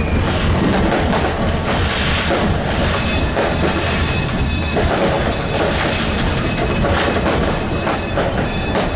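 New Year's Eve firecrackers and fireworks banging and crackling all around a Stadtbahn light-rail tram, heard from inside its driver's cab over the tram's steady running rumble. A thin high squeal joins about halfway through.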